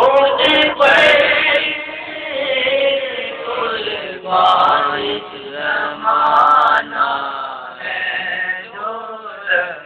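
A boy singing an Urdu naat (devotional verse) solo into a handheld microphone, with long, drawn-out, gliding phrases and short breaks for breath, and no instruments.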